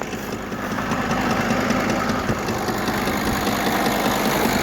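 V10 TDI diesel engine running with an unpleasant knock, a fast rattling tick over the engine's steady hum. The owner suspects a dropped glow plug lying under the alternator, being struck by the alternator's rotating parts.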